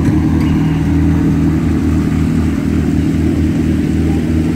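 Supercar engine running steadily at low revs, a deep even note with no revving.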